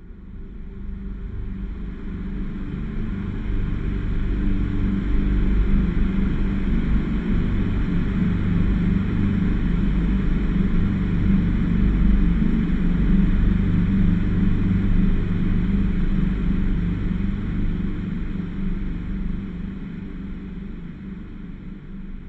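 Dark, airy horror ambience drone: a low droning bed with a breathy hiss above it, swelling up over the first few seconds and slowly fading toward the end.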